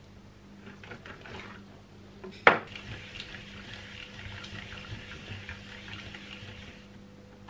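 A single sharp knock about two and a half seconds in, then a steady soft hiss of a ball of bread dough being rolled round by hand on a silicone baking mat.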